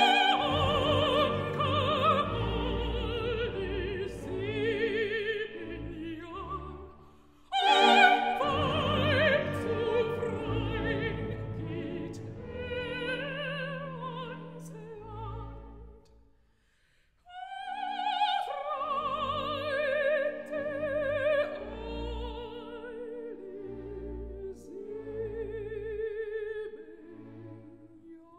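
Soprano singing opera with full orchestra, her voice sung with a wide vibrato. Two loud outbursts of voice and orchestra come about eight seconds apart. After a brief pause about sixteen seconds in, she goes on more quietly over the orchestra.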